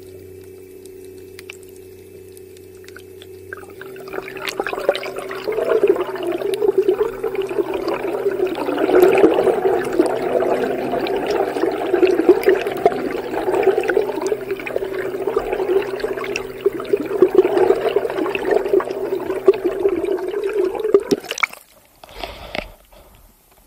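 Thrustme Kicker 1000-watt electric outboard heard underwater: a steady motor whine of a few held tones. About four seconds in the tones shift and loud rushing, bubbling water joins them as the propeller drives the boat. It all breaks off near the end with a few short knocks.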